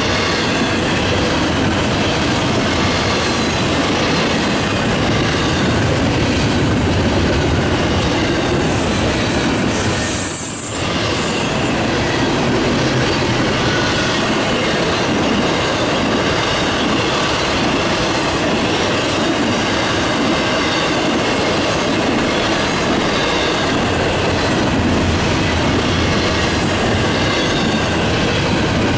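Intermodal freight train's double-stack well cars and trailer flatcars rolling past: steady wheel-on-rail noise with clickety-clack over the rail joints and a faint high wheel squeal. The noise briefly dips about ten seconds in.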